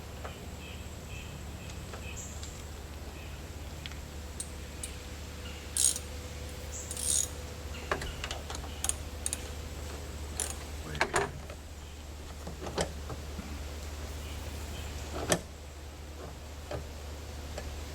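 Metal seatbelt hardware being handled during installation: scattered light clicks, clinks and jingles, with the sharpest click about fifteen seconds in, over a steady low hum.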